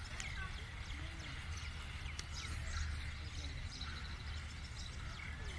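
Birds chirping, many short calls sliding up and down in pitch, over a steady low rumble.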